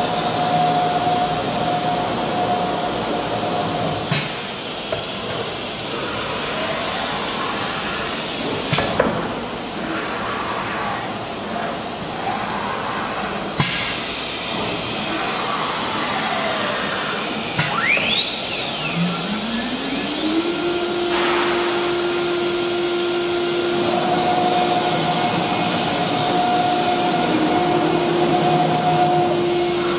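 CNC wood router with an automatic tool changer: the spindle's steady whine cuts off a few seconds in, a few sharp clicks come during the tool change, and the spindle spins back up with a rising whine about two thirds of the way through, then runs steadily. A steady rushing machine noise runs underneath.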